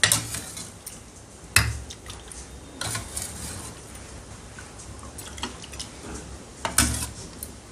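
A metal ladle clinking against the pot and a ceramic bowl as chicken soup is served. There are four sharp clinks, the loudest at the start and about one and a half seconds in, with liquid pouring in between.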